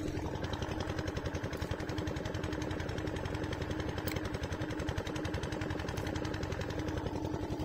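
Small motor boat engine running steadily with a rapid, even pulse.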